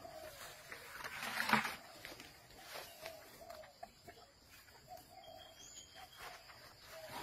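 Asian elephant tearing and chewing leafy branches: rustling, crackling foliage with a loud crunch about a second and a half in and a smaller one a second later.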